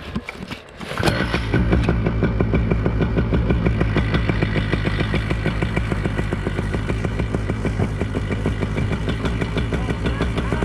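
Paramotor's two-stroke engine comes up loud about a second in, after a few clicks, then runs steadily with a fast, even pulsing.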